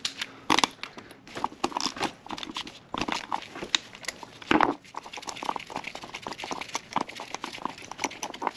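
Irregular clicks, taps and rustling of hand tools and engine parts being handled during engine disassembly, with a louder knock about halfway through.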